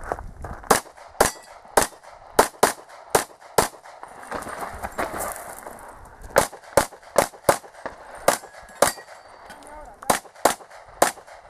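Handgun shots fired mostly in quick pairs, about sixteen shots in three strings with short pauses between, as the shooter engages targets at one position and then another.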